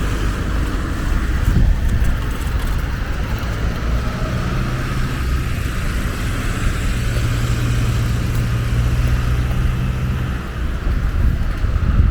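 Outdoor ambience dominated by low road-traffic rumble, with a steady low engine hum through the middle of the stretch as a vehicle passes.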